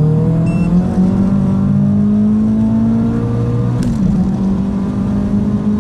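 Ford Focus RS Mk3's tuned 2.3-litre turbocharged four-cylinder, at about 650 PS, accelerating hard with its pitch climbing steadily. About four seconds in there is an upshift with a short sharp pop and a dip in pitch, and then it pulls up again.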